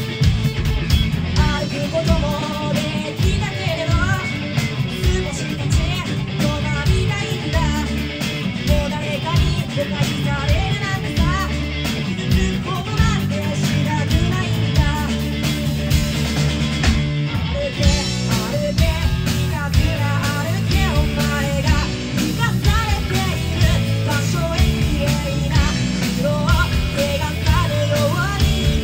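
Live rock trio playing a song: distorted electric guitar, bass guitar and a drum kit keeping a steady beat, with a woman singing lead into the microphone.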